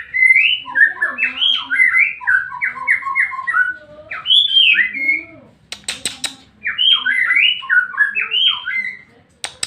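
White-rumped shama singing: rapid, varied whistled phrases of gliding notes in two long runs with a short pause in the middle, a few sharp clicks in the pause and just before the end.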